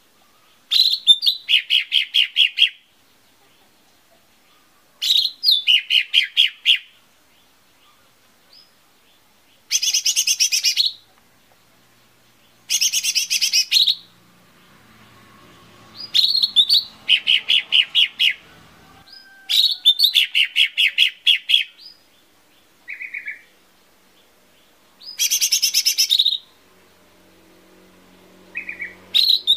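Lesser green leafbird (cucak ijo mini) singing: about seven short bursts of rapid, high chattering notes, each a second or two long and coming every three to four seconds, with a couple of short single notes in between.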